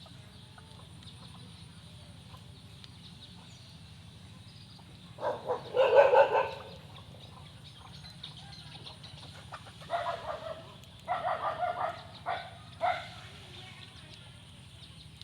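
Chickens calling: a loud drawn-out call, likely a rooster crow, about five seconds in, then several shorter clucking bursts. Underneath runs a faint, steady, high-pitched drone of cicadas.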